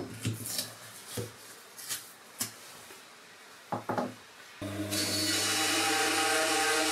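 Wood being handled on a work surface, a few scattered knocks and light clicks. About four and a half seconds in, a band saw is switched on and runs with a steady motor hum and hiss.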